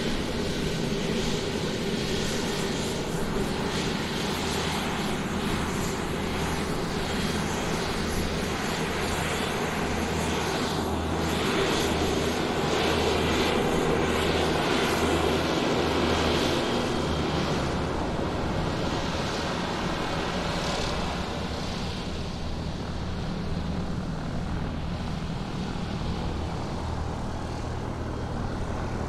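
Airplane taxiing on the ground, its engine running in a steady drone that swells a little about halfway through and then eases off somewhat.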